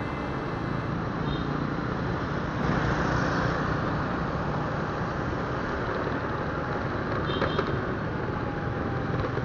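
Steady road and traffic noise heard from a motorcycle riding through city traffic, a little louder around three seconds in.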